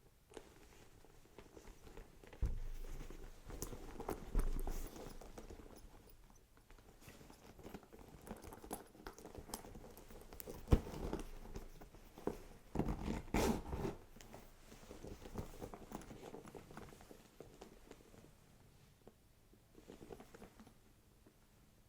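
Hands handling a Coach Rowan leather handbag: scattered rustles, soft taps and clicks, busier twice, with one sharp click about eleven seconds in.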